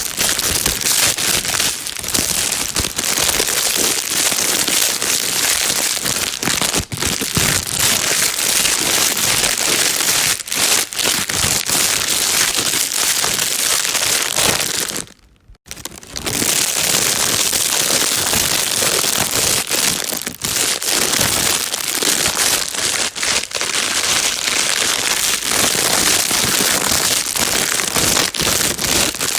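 Plastic bag crinkling continuously as a dense, fast crackle, played as white noise for soothing a baby. It breaks off for about a second halfway through, then resumes.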